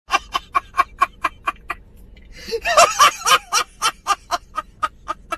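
Rapid high-pitched cackling in short, evenly spaced pulses, about five a second, with a denser, wavering burst about halfway through.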